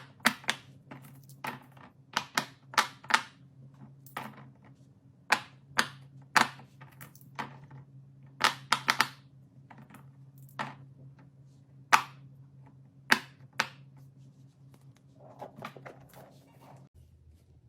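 Fidget toys being popped and clicked by hand: a run of irregular, sharp clicks and pops, some in quick doubles and triples, over a steady low hum.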